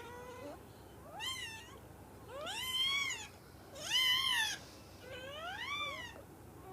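Newborn Great Dane puppy crying: four squealing cries, each rising and then falling in pitch.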